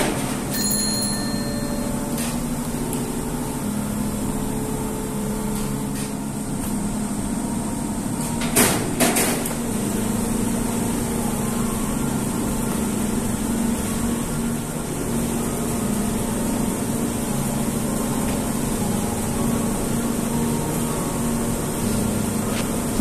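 Steady machine hum, with a few sharp knocks and clacks, the loudest a pair about nine seconds in.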